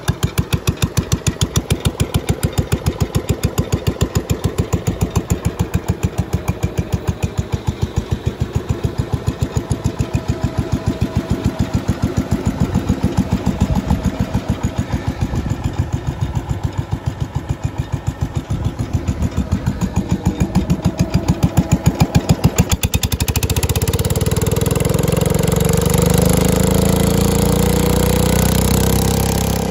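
1970s Case 220 garden tractor's single-cylinder engine idling with slow, distinct firing beats, then throttled up about three-quarters of the way through to a fast, steady run, its pitch rising as it speeds up.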